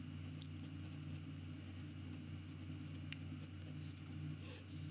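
Fountain pen nib scratching faintly across notebook paper as a word is written in capital letters, with a few sharper ticks of pen strokes, over a steady low hum.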